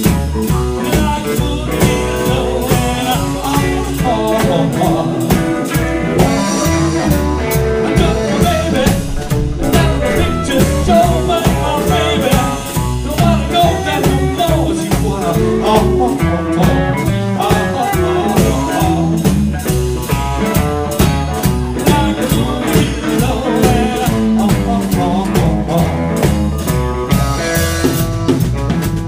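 Live blues shuffle from a small band: electric guitar, plucked upright double bass and drum kit keeping a steady beat, with a harmonica played into a hand-cupped mic.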